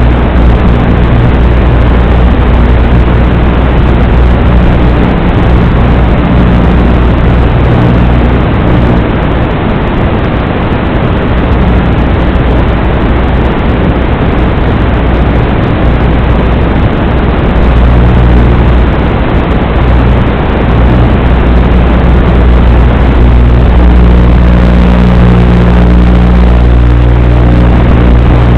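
Small FPV drone's motors and propellers running in flight, a loud, steady, noisy drone heard through the onboard camera's audio, with the low hum strengthening near the end.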